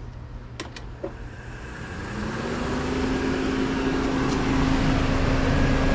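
Honeywell evaporative (swamp) cooler's blower fan starting up: a couple of clicks, then a hum that rises in pitch and grows louder as the fan comes up to speed, settling into a steady running drone with a rush of air.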